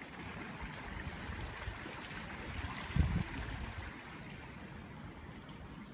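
Small stream running steadily, with one short low thump about halfway through.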